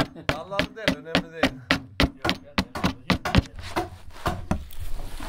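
Curved hand adze (keser) chopping into the inside of a mulberry-wood saz bowl being hollowed out. Rapid, even strokes, about four a second, each a sharp woody chop, becoming softer and closer together near the end.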